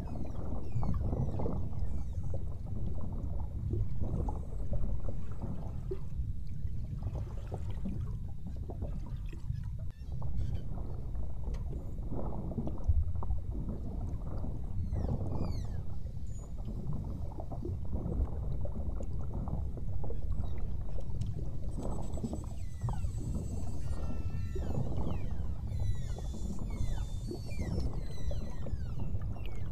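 Beluga whales chirping and whistling: many short high sweeps, falling and rising, coming thickest near the end, over a steady low rumble of water moving past the boat.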